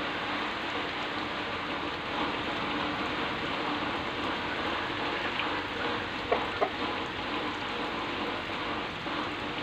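Steady hiss of rain falling on vegetation and ground, with two short, sharper sounds close together a little past halfway through.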